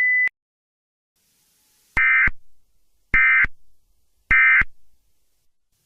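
Emergency Alert System end-of-message signal: three short bursts of warbling digital data tones, evenly spaced about a second apart, marking the end of the alert. A steady high tone cuts off right at the start.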